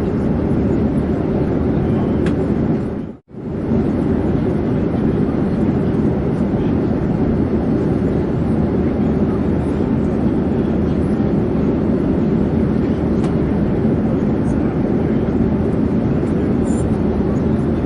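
Airplane in flight: a steady, even noise of engines and airflow, heaviest in the low range. It briefly drops out about three seconds in and then resumes unchanged.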